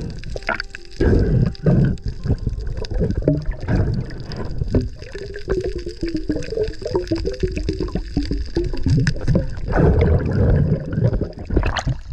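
Underwater camera sound: water gurgling and sloshing around the camera, with scattered clicks and knocks and a couple of louder surges of water noise.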